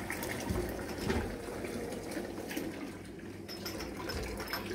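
Running water with small irregular clicks and knocks, a little softer in the second half.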